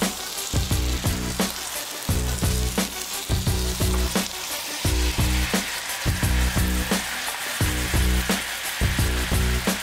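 Spanish mackerel fillets sizzling in oil in a frying pan; the sizzle grows stronger about halfway through as the lemon-ginger sauce goes into the hot pan and bubbles down. Background music with a steady beat plays underneath.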